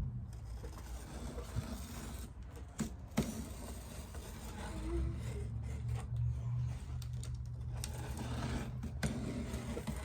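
Scissors trimming construction paper glued onto a cardboard shoebox: paper rustling with a few sharp snips.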